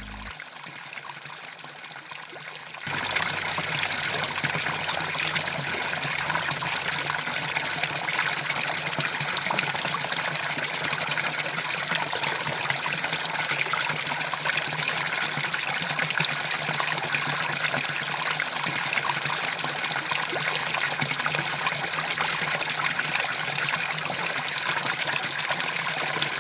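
A stream of water falling into a pool, splashing steadily; the splashing jumps louder about three seconds in and then holds even.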